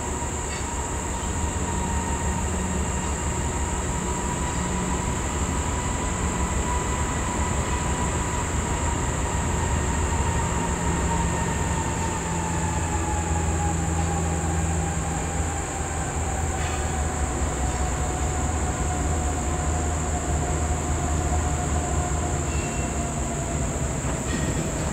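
Approaching freight train led by GE C40-8 diesel locomotives with V16 engines, a steady low rumble with a thin whine that slowly drops in pitch over the second half. A steady high insect buzz runs alongside.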